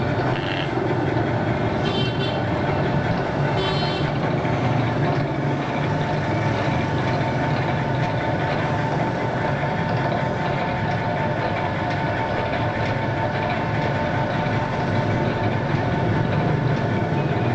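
Pork-skin slicing and shredding machine running: a steady mechanical hum with a constant whine, with a few brief high-pitched sounds in the first four seconds.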